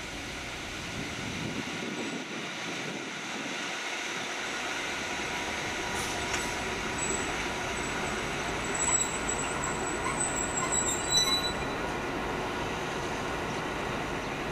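A Class 232 diesel locomotive ('Ludmilla') passing slowly, its V16 diesel engine running with a steady whine. High thin wheel squeals come and go from about seven to eleven seconds in, as the locomotive is closest.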